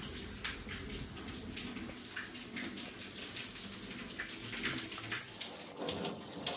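Footsteps and light scattered clicks as people walk along a corridor, then a water tap running into a sink for about the last second.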